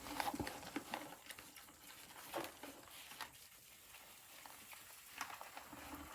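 Young pigs shuffling and rooting in their pen, heard as faint scattered scuffs and clicks, a few of them sharper, about a third of a second in and again near the middle and near the end.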